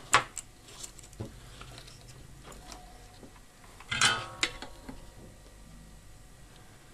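Metal hand tools handled on a workbench: a sharp clack just after the start, a few faint ticks, then a short metallic clatter about four seconds in as the soldering iron is taken up from its stand.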